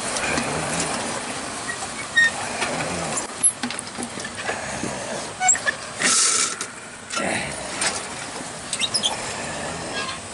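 A person riding down a long playground slide on a mat: a steady rumble with scattered clicks and knocks, and a short burst of hiss about six seconds in.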